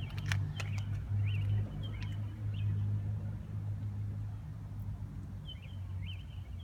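A steady low hum, with small birds chirping in short, high notes now and then and a few sharp clicks in the first second.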